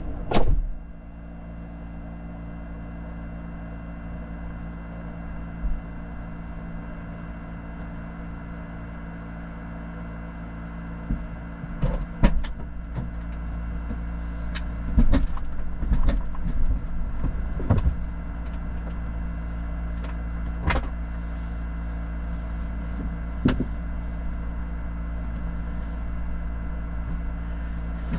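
4x4 engine idling steadily, with a scatter of knocks and clunks about halfway through.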